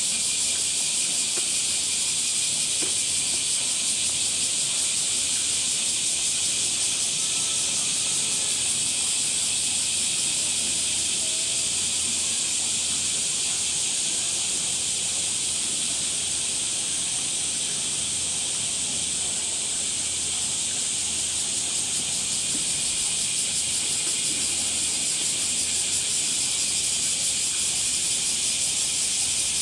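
Cicadas singing in a dense, steady, high-pitched summer chorus. A higher, thinner buzz joins briefly about two-thirds of the way through.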